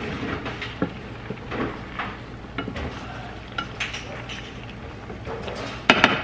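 Wooden spoon stirring and scraping stew in a skillet, with scattered light knocks of the spoon against the pan over a low sizzle. A couple of sharper knocks come near the end.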